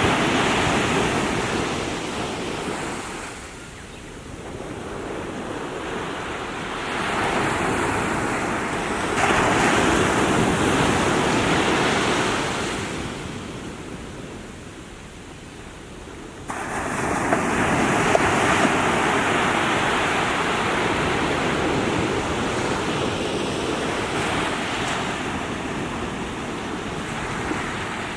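Small waves washing onto the shore, the surf swelling and easing every few seconds, with a sudden surge about sixteen seconds in.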